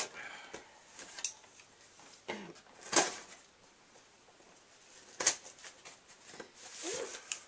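A cardboard box's packing tape being slit open with a small hand cutter: soft scratchy strokes with three sharp clicks, the loudest about three seconds in.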